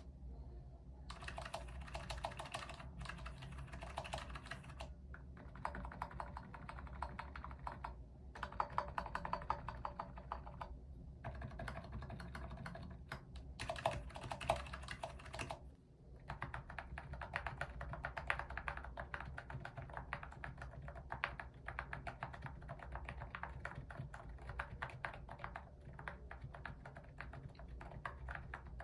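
Quiet typing on a GEEZER portable Bluetooth membrane keyboard, a low-noise model: rapid soft key clicks in runs of a few seconds, broken by short pauses.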